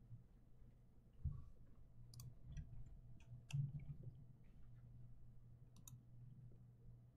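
Faint, scattered clicks at a computer desk over a low steady hum, with soft thumps about a second in and again halfway through.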